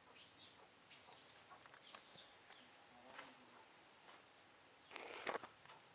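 Faint, high-pitched animal chirps, three short falling calls about a second apart, then a louder burst of rustling and clicks about five seconds in.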